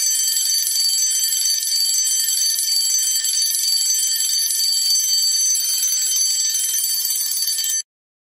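Electric school bell ringing loudly and continuously for about eight seconds, then cutting off abruptly.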